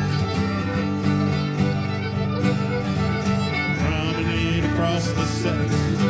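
Live string band playing a reel for a contra dance: fiddle carrying the tune over guitar, with a steady dance beat.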